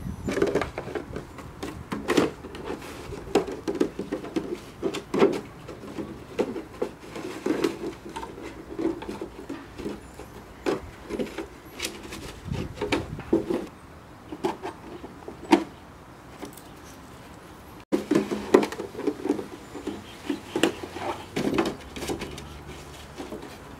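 Empty plastic milk bottle being batted, bitten and pushed across grass by an Airedale puppy: irregular hollow plastic knocks and crackles, at times several in quick succession.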